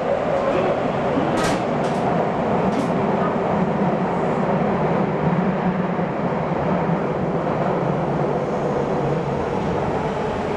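Running noise of a Nagoya subway 5050 series train heard inside the car: a steady rumble of wheels on rail, with three sharp clicks between about one and a half and three seconds in. The train is slowing as it comes into a station stop.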